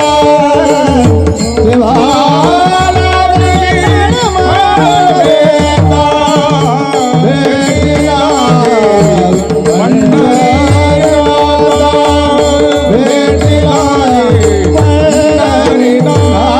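Devotional kirtan music: voices singing a drawn-out melody over steady sustained instrumental tones, with tabla drumming in a repeating rhythm.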